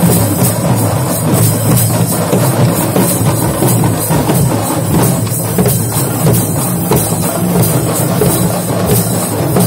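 A group of large frame drums beaten with sticks in a fast, continuous rhythm, with small metal hand cymbals clashing along.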